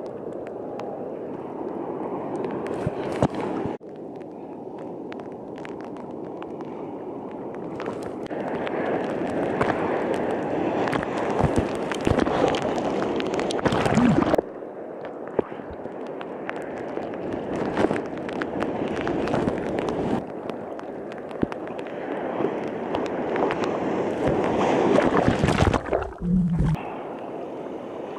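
Churning water and surf sloshing around a camera in the sea during a heavy typhoon swell, a steady noisy wash with splashes and several abrupt drops and jumps in level.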